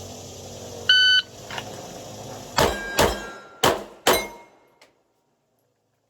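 A shot timer's short start beep about a second in, then four 9mm Glock pistol shots in two quick pairs, each pair about 0.4 s apart, with a slightly longer gap between the pairs as the shooter moves to a second target. The sound cuts off abruptly soon after the last shot.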